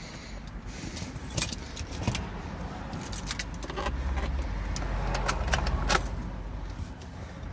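Car keys jangling on their ring as the ignition key is turned in a 2010 Chevrolet Traverse, with a low vehicle rumble coming up about four seconds in.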